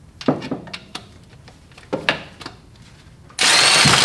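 Hand tools and loose metal parts clinking and knocking while engine parts are taken off, two sharper clanks about a second and a half apart. Near the end comes a loud half-second burst of hiss.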